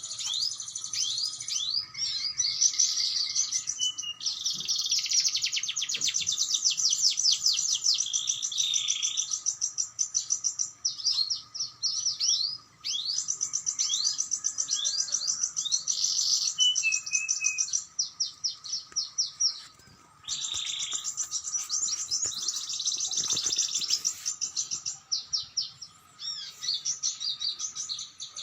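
Canary singing long phrases of rapid, high trills and chirps, with short breaks about 13 and 20 seconds in.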